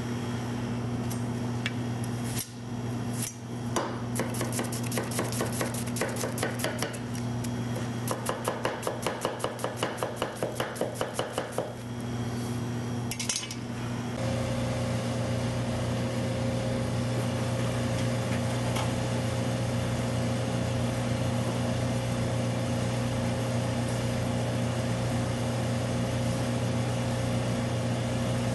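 A Delbert Ealy Damascus gyuto chopping an onion on a wooden cutting board: quick knocks of the blade on the board, about four a second, that stop about halfway through. A steady low hum runs underneath and is all that is left afterwards.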